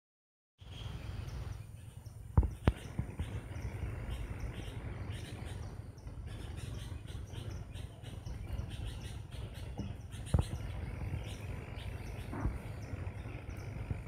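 Sooty-headed bulbuls calling in the canopy: many short, high chirps throughout, over a steady low rumble. A few sharp knocks cut through, the loudest about two seconds in and again about ten seconds in.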